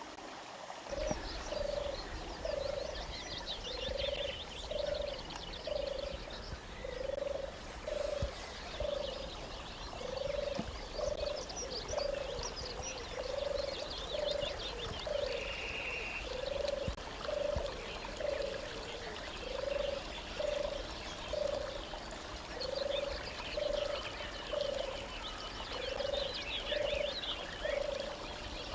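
A chorus of frogs croaking, short low calls repeated in a steady rhythm of about two a second, with a fainter high-pitched chirring behind.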